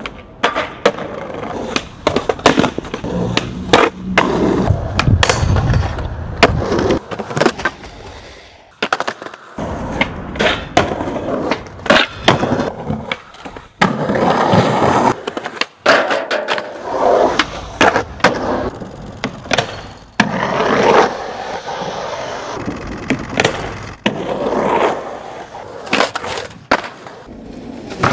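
Skateboards in a run of street-skating clips: wheels rolling on concrete, many sharp cracks of tail pops and landings, and scraping stretches as the boards and trucks grind and slide along metal handrails.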